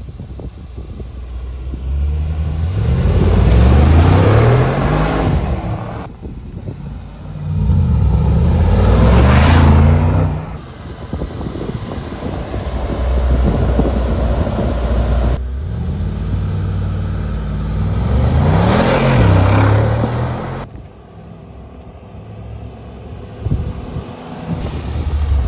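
Mercedes-AMG G63's twin-turbo V8 revved three times through its exhaust while standing, each rev climbing and falling back to idle, with the engine idling between the revs and dropping quieter near the end.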